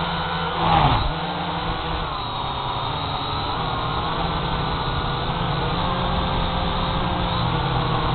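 Small camera drone's motors and propellers buzzing steadily, the pitch wandering up and down as it flies low. A short, louder rush comes about a second in.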